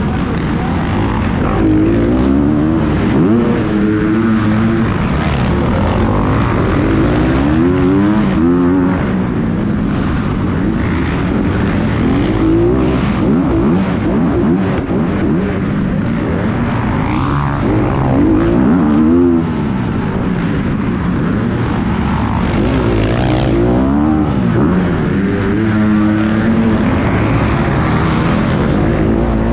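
Dirt bike engine revving hard and dropping off again and again as the rider accelerates, shifts and brakes around the track, heard from the rider's helmet.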